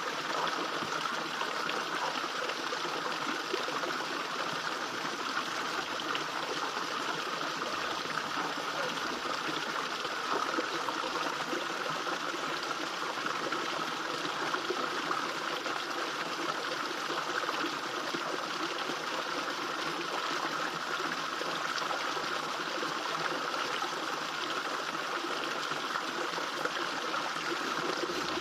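Small fish-pond waterfall, water falling into the pond and running steadily and evenly.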